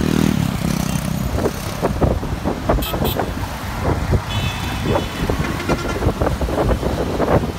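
Storm wind buffeting the microphone over passing road traffic, with rattling knocks and a short vehicle horn toot about four and a half seconds in.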